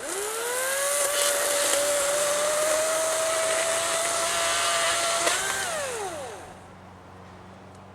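Battery-powered electric chainsaw motor spinning up on the trigger, running at a steady whine for about five seconds, then winding down with a falling pitch once released.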